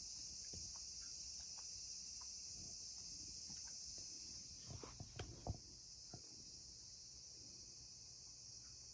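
A steady high-pitched hiss, with a few light knocks and footsteps about five seconds in.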